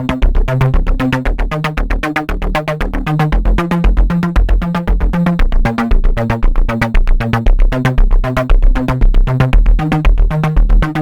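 Electronic synthesizer background music with a fast, steady beat of about five pulses a second over a stepping bass line.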